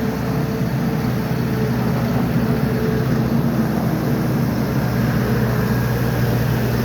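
Diesel engine running steadily at an even speed, a low steady hum with no change in pitch.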